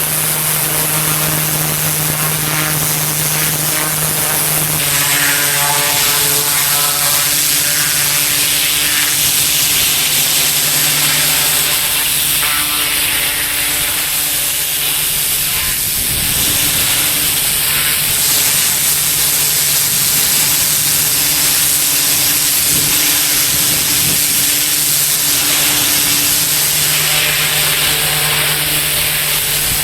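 Pressure washer running steadily, its engine humming under the hiss of high-pressure water spraying onto pavement; the hiss brightens about five seconds in.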